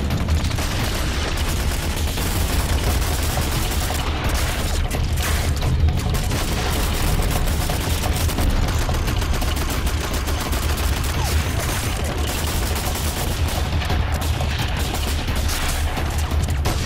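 Sustained heavy gunfire: many rifles and machine guns firing together, the shots so close together that they run into one continuous volley.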